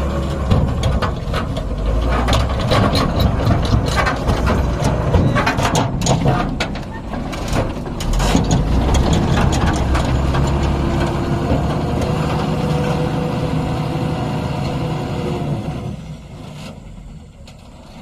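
Tata tipper truck's diesel engine pulling away under load over soft soil, with many sharp clicks and knocks through the first half. It gets clearly quieter about sixteen seconds in as the truck moves off.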